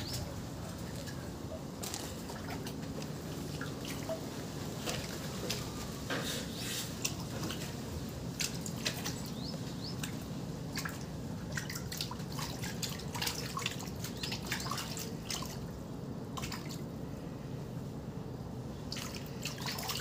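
Climbing perch at the surface of a tarpaulin fish tank, making irregular small plops and splashes in the water, several a second, over a steady low hum.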